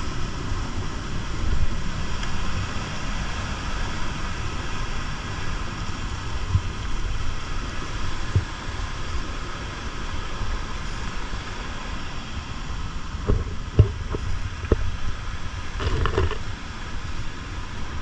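Wind rumbling steadily on the microphone with a constant hiss, as the hiker walks through the scrub. A few sharp knocks and a brief scrape come near the end, footsteps and brushing against rock and branches.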